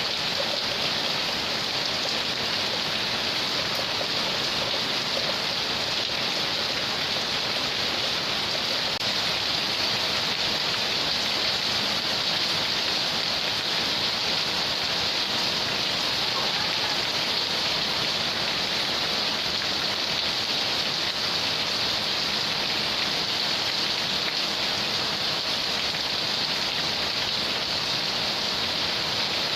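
Rainstorm: rain falling steadily in the wind, an even hiss with no breaks.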